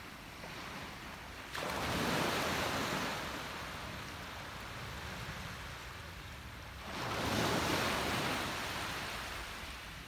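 Small ocean waves breaking and washing up onto a sandy beach: one wash starts abruptly about one and a half seconds in, a second rises about seven seconds in, and each fades as the water spreads out.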